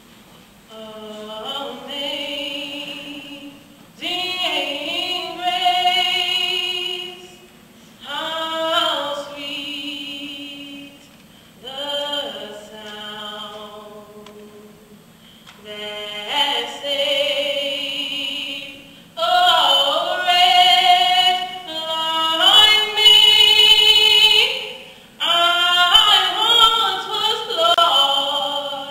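A woman singing solo and unaccompanied, slow phrases of long held notes with vibrato, a short breath between each, growing louder in the second half.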